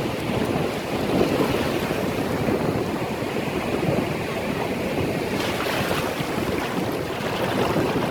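Ocean surf breaking and washing up the beach in a steady rush, with a brighter hiss of wash about five and a half seconds in. Wind buffets the microphone, adding a low rumble.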